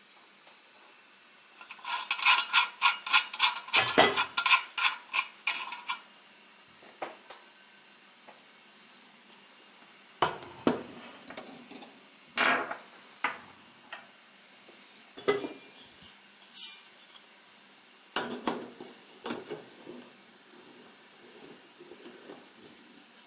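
Metal parts of a sheet-metal hurricane lantern clicking and clinking as it is handled for filling. A quick run of ringing metallic clicks, about three a second, lasts some four seconds, then single clicks and knocks follow now and then.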